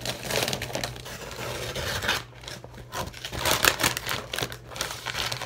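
Cardboard box being opened and brown paper wrapping crinkling and rustling as it is pulled out by hand, in irregular bursts.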